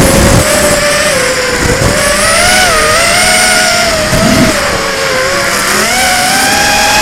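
FPV quadcopter's brushless motors and propellers whining, the pitch rising and falling with the throttle as it swoops and banks, recorded close by the onboard camera. A few short gusts of wind rumble hit the microphone.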